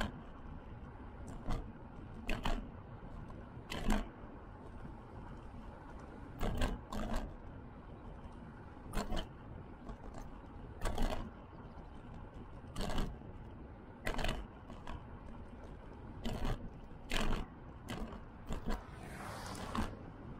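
Ride noise from an e-bike on a cracked asphalt path, picked up by a camera mounted on the bike: a steady low rumble of wind and tyres, with sharp knocks every second or two as the bike jolts. Near the end a rising hiss of a car passing on the road alongside joins in.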